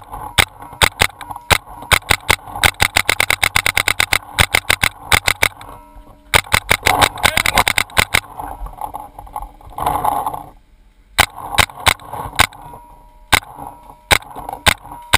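Paintball markers firing: a few single shots, then two fast strings of about ten shots a second, then scattered single shots near the end.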